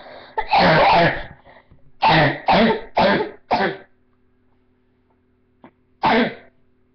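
A person coughing: a long cough or throat-clearing, then four quick coughs about half a second apart, and one more cough a couple of seconds later.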